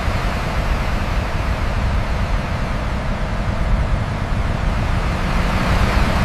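Steady low rumble with a broad hiss, like a large vehicle's engine running.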